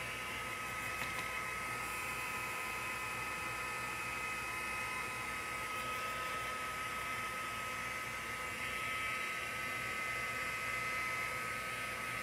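Embossing heat gun running steadily, its fan blowing hot air with a constant hum and a thin high whine, melting embossing powder on cardstock.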